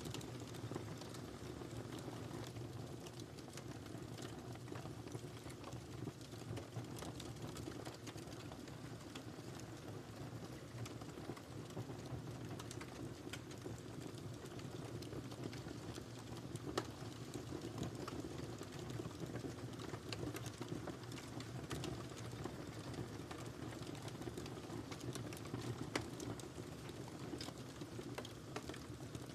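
Wood fire crackling in a fireplace: a steady low hiss of burning with irregular small snaps and pops, a couple of them louder.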